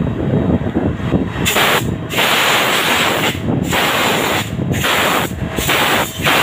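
A CNC lathe's low running hum, then from about a second and a half in, five bursts of loud spraying hiss with short gaps between them.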